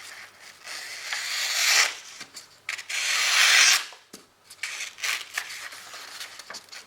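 Victorinox Hunter Pro Alox lockback's drop-point blade slicing through a sheet of paper in two long strokes, each a rising papery hiss, with light rustling of the paper between. The cut is clean enough to show a very sharp edge.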